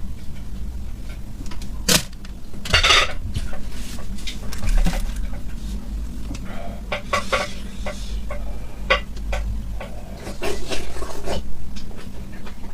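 Utensils clicking and scraping against dishes in a series of sharp, irregular clicks and short scrapes, mixed with close-up eating noises from a seafood meal.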